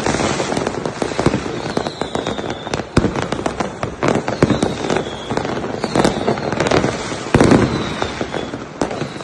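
Fireworks and firecrackers going off in quick succession: many overlapping bangs and crackles, with a sharp bang about three seconds in and a heavier one about seven and a half seconds in.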